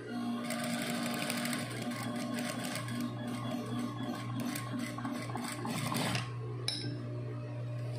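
Sewing machine running a line of stitches for about six seconds, then stopping, followed by a couple of short clicks.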